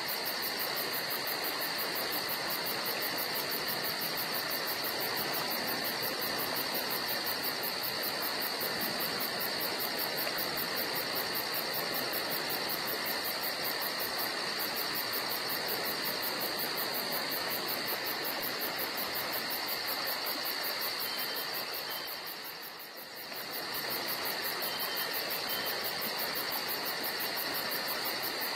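Steady chorus of crickets trilling over a constant hiss, dipping briefly about three quarters of the way through.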